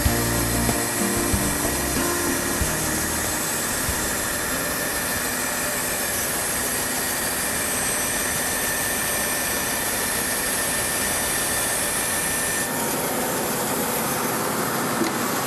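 Bandsaw with a Resaw King blade cutting through a block of polycarbonate plastic: a steady, even cutting noise over the running saw, with a faint high whine that stops about thirteen seconds in.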